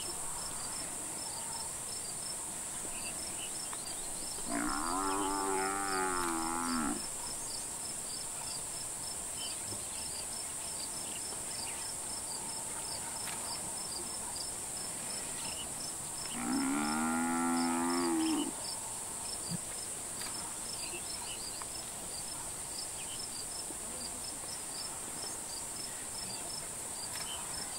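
A Cape buffalo bellowing twice in distress as lions pull it down, each call a long drawn-out bawl of about two seconds. Behind it there is a steady high insect hiss and regular chirping.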